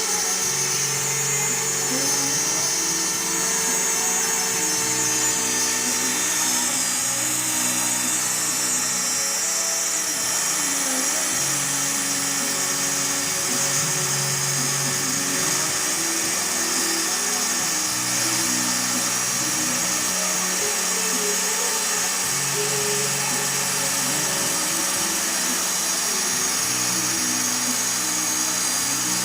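CNC router spindle whining steadily at high pitch as it cuts aluminium composite panel, under background music.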